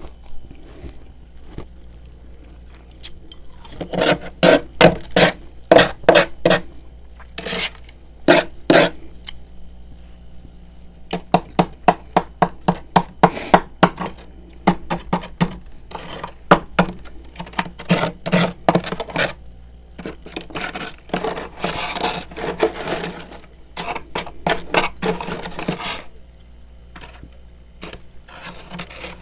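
Freezer frost being scraped loose: runs of quick, sharp scraping strokes with short pauses between, turning denser and more continuous near the end.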